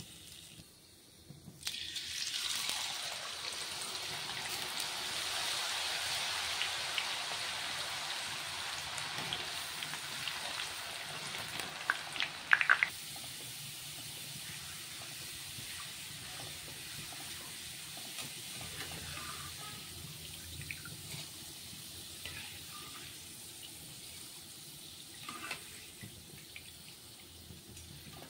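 Potato strips deep-frying in hot oil in a steel kadai. A loud sizzle starts about two seconds in and stays loud, with a few sharp clicks at its loudest near the middle. After about thirteen seconds it drops to a quieter, steady sizzle with occasional clicks.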